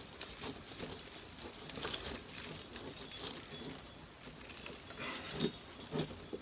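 Faint rustling and crinkling with small scattered clicks as the flocked artificial wreath branches and a wired ribbon bow are handled and florist wire is twisted around them behind the wreath.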